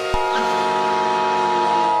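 Layered steady electronic alert tones held at several pitches. A click comes just after the start as a higher tone joins, and a lower tone slowly falls in pitch.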